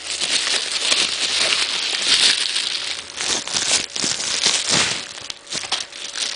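Plastic packaging and bubble wrap being handled, a dense irregular crinkling and crackling with many small clicks that eases off a little near the end.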